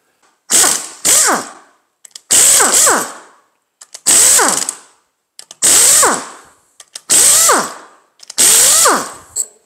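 Cordless drill-driver with a 13 mm socket spinning out the bolts around an engine's oil pan, one at a time. There are seven short runs of the motor, and the pitch falls at the end of each as the trigger is let go.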